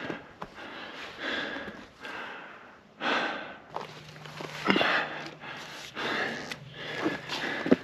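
A hiker breathing hard on a steep climb, a heavy breath about every second, with a few short knocks between the breaths. A faint steady low hum comes in about halfway through.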